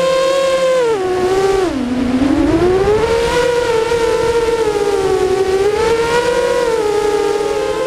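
Brushless motors and 5-inch propellers of an FPV freestyle quadcopter (DYS SHU 2306 2500KV motors), heard from its onboard camera: a loud, steady whine whose pitch follows the throttle. The pitch drops sharply about two seconds in, climbs back a second later, then holds fairly steady with small swells.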